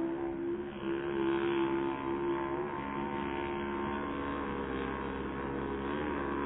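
Radio-controlled racing hydroplane boat running at speed across open water: a steady motor drone made of several pitched tones that waver slightly, its strongest tone fading a little about two and a half seconds in.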